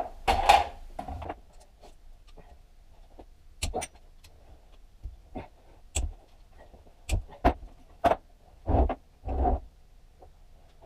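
Hand tools working on a motorcycle engine's metal casings during dismantling: irregular clinks and knocks, with a few short scrapes.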